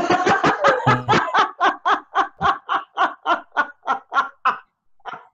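A woman laughing hard: a long run of rhythmic ha-ha pulses, about four or five a second, that slow and fade near the end.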